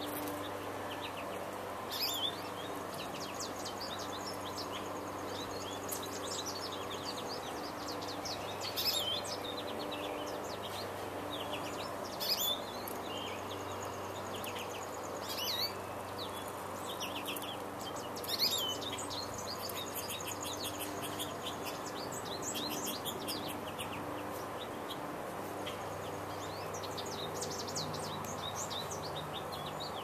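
Wild songbirds chirping and singing in a steady chorus, with a louder sharp call every few seconds, over a faint low hum.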